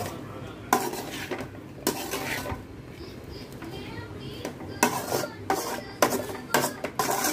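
A perforated steel spatula scraping and knocking against a metal kadai while fried idli pieces are stirred and tossed in masala: a string of clinks and scrapes, coming closer together in the second half.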